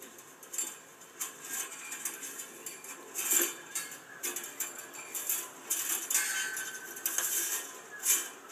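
Fencing wire being handled and drawn against a steel strainer post and stay: scattered light metallic clinks and scrapes, with a louder clink about three seconds in and another near the end.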